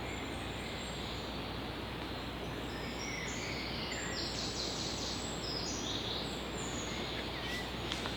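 Steady woodland background noise with a songbird singing short, high, quick phrases from about three seconds in until about seven seconds.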